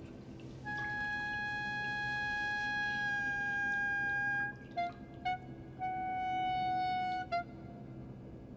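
Film score: a solo woodwind playing long held notes. First one long note, then two short ones, then a slightly lower long note and a short one near the end.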